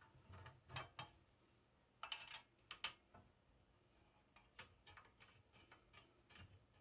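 Faint, scattered clicks and knocks of metal parts being handled on a Robert Sorby ProEdge belt sharpener, most of them in the first three seconds.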